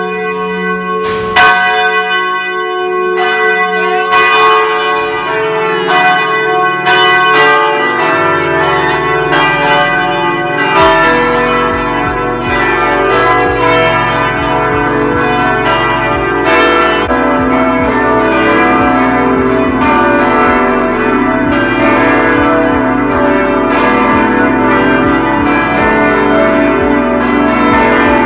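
The Catedral da Sé's 61-bell carillon playing loudly, heard at close range from inside the belfry. Many bronze bells are struck in quick succession and their ringing tones overlap, with deeper bells joining about eight seconds in.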